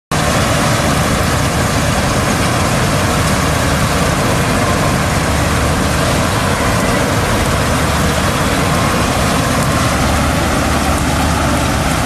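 Combine harvester running: a loud, steady drone of engine and machinery that holds unchanged throughout.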